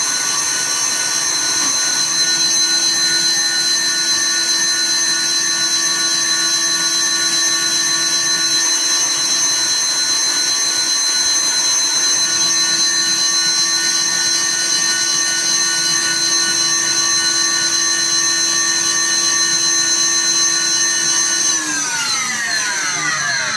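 Electric blender running at a steady speed, whipping egg yolks and melted butter into a sauce; near the end it is switched off and winds down, its pitch falling.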